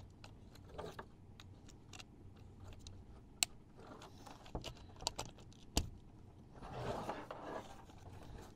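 Light clicks and knocks of a Shurflo RV water pump's plastic upper housing being handled and seated onto the pump, with a few sharp clicks and a brief rustle near the end.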